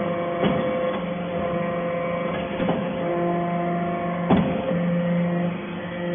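Hydraulic metal-chip briquetting press running, its hydraulic power unit giving a steady machine hum. Three sharp clunks from the press come about two seconds apart.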